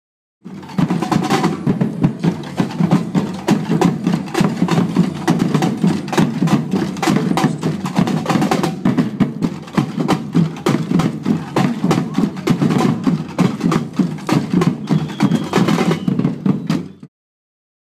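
A drumming group playing a fast, busy rhythm on drums and percussion. It starts abruptly just after the beginning and cuts off suddenly near the end.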